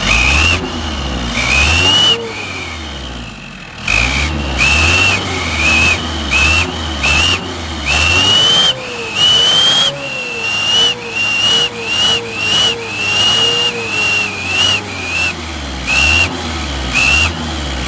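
An aluminium turbo-sound whistle clipped onto a truck's exhaust tip shrills with each throttle blip of the engine, every blip giving a short whistle that rises in pitch, like a turbo spooling. After a brief lull about two seconds in, the blips resume and come faster and shorter in the second half, about two a second.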